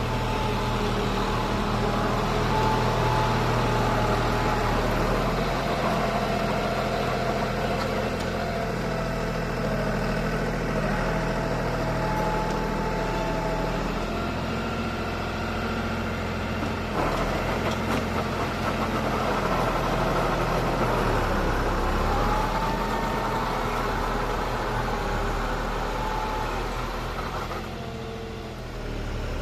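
John Deere tractor's diesel engine running steadily as the tractor drives and turns with a rotavator hitched behind, a faint wavering whine above the engine note. The engine sound eases off slightly near the end.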